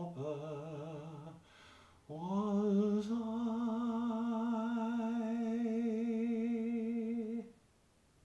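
A man's unaccompanied voice singing slowly with vibrato: a short phrase, a brief pause, then one long held note of about five seconds that stops about a second before the end.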